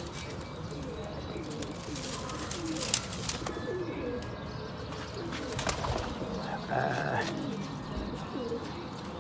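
Domestic pigeons cooing repeatedly, low rolling calls, with a few sharp clicks; the loudest click comes about three seconds in.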